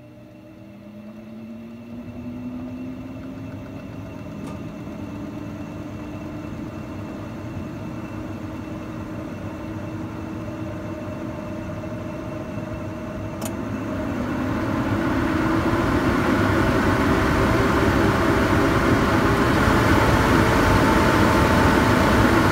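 Cypress AC8830-3 range hood's DC-motor fan spinning up on its lowest speed, a whine rising in pitch and settling into a steady hum. About 13 seconds in there is a click, and the fan ramps up to a faster speed, its airflow rush growing much louder.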